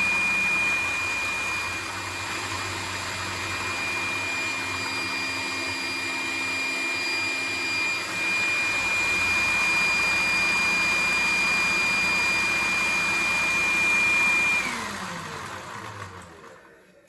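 Vacuum cleaner running steadily with a high whine and rushing air, pulling suction through a Lego four-cylinder rotary valve vacuum engine. Near the end the whine drops in pitch and the sound fades out as the vacuum motor spins down.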